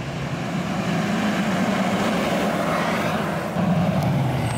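Ford F450-based armoured truck driving, its Power Stroke diesel V8 running with tyre and road noise; the sound steps up louder about three and a half seconds in.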